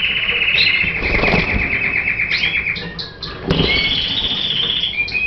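Domestic canary singing: a long, fast trill held for over two seconds, then after a short break a second, higher trill. A couple of dull bumps sound along with it.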